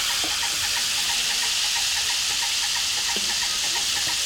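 Crickets deep-frying in a pan of hot oil: a steady, even sizzle.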